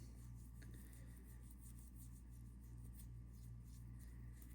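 Faint, irregular rubbing on the G-Shock's parts to work out small marks, over a steady low hum.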